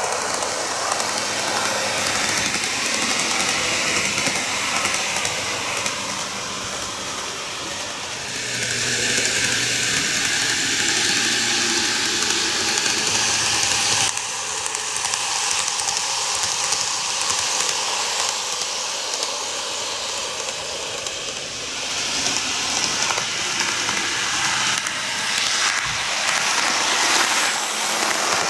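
N-gauge model train, a Greenmax Kintetsu 12410 series four-car set, running on TOMIX superelevated track: a steady hiss of motor and wheels rolling on rail. It grows louder as the cars pass close, twice, with an abrupt drop about halfway through.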